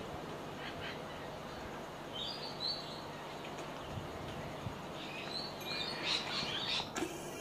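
Birds chirping in short calls about two seconds in and again over the last couple of seconds, over a steady background hiss.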